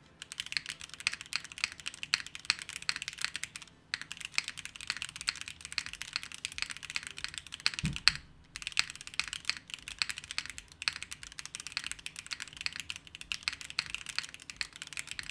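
Void65 mechanical keyboard with Gateron Khonsu switches being typed on fast, a steady stream of key clacks. The typing breaks off briefly twice, about four and eight seconds in, with one deeper knock just before the second break.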